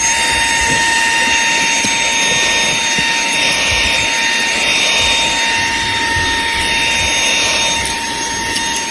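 Cordless handheld car vacuum cleaner running: a steady high motor whine over a rush of air, easing off slightly near the end.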